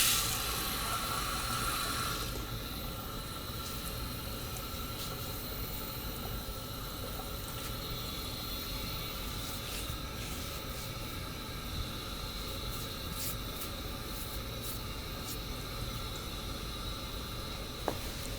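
A steady hissing noise, a little louder for the first two seconds, with a few faint clicks, the sharpest near the end.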